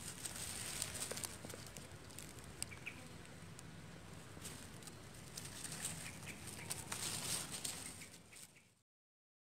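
Bamboo leaves and thin twigs rustling and crackling as a hand pushes through them, with many small clicks and scrapes. The sound cuts off abruptly near the end.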